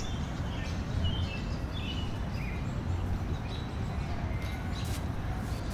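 Outdoor ambience: a steady low background noise with a few faint, short bird chirps.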